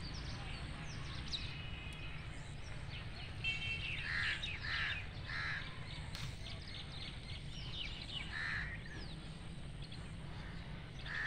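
Crows cawing: three calls in quick succession about four seconds in, then single caws later, over a scatter of small-bird chirps and a steady low rumble.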